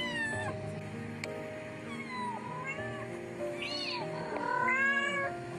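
Kitten meowing about four times, the last call longest and loudest: distress cries of a kitten trapped inside an air-conditioner outdoor unit. Background music plays underneath.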